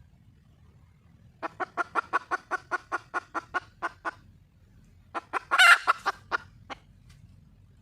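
Wild junglefowl hen calling for a mate. A quick, even run of about seventeen short clucks, some six a second, is followed after a pause by a louder group of clucks around one longer, stronger squawk.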